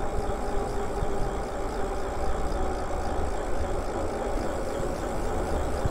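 Lyric Graffiti e-bike riding along a paved street: steady wind and road rush with a low rumble and a faint steady hum.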